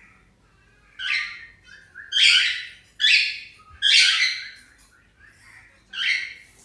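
Cockatiel squawking: five loud, harsh calls about a second apart, with a longer pause before the last one.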